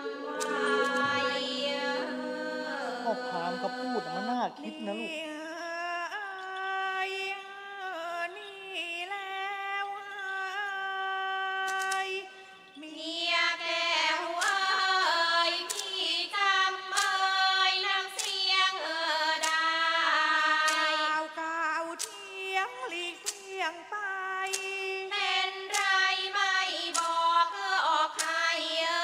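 Thai classical female singing for lakhon nok dance-drama, a long, ornamented melody with held and gliding notes. Sharp regular strokes, about one a second, join in about halfway through.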